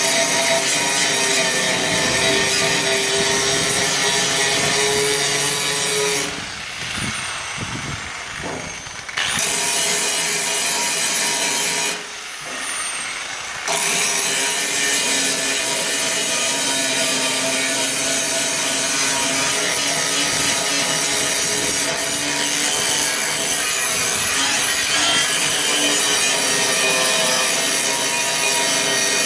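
Angle grinder with a grinding disc grinding down steel welds on a car body, a loud steady rasping grind with a steady whine through it. Twice, about six and twelve seconds in, the grind drops away for a few seconds, as when the disc comes off the metal, then bites again.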